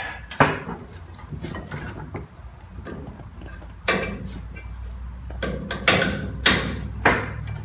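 Metal clicks and knocks of an emergency-brake cable being handled and fitted into its bracket under a truck frame: five or so sharp knocks at uneven intervals, over a low steady hum.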